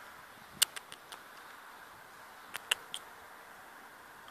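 A few sharp clicks in two quick clusters, one about half a second in and another near three seconds, over a faint steady hiss.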